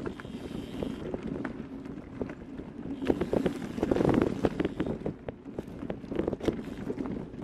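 Wind buffeting the microphone over a low rumble, with many irregular knocks and crunches from travelling along a rough, narrow path.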